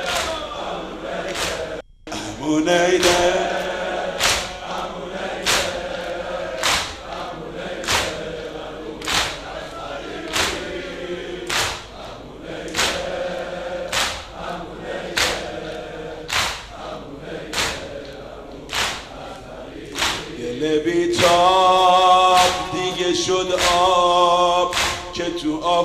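Mourners chanting together over an even rhythm of chest-beating (sineh-zani), about one slap every 0.8 seconds, in a Shia mourning elegy. The sound drops out for a moment about two seconds in. Near the end a strong voice holds long, wavering sung notes over the beat.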